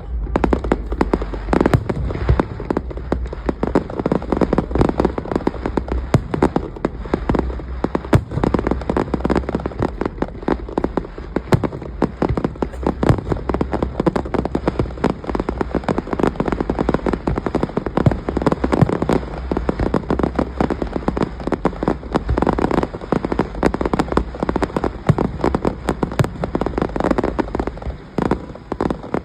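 Fireworks display: aerial shells going off in a dense, continuous barrage of sharp bangs in quick succession.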